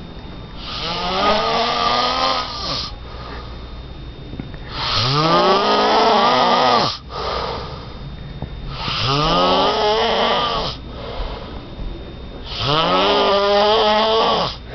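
A person snoring in deep sleep: four long snores about four seconds apart, each around two seconds, each rising in pitch as it starts.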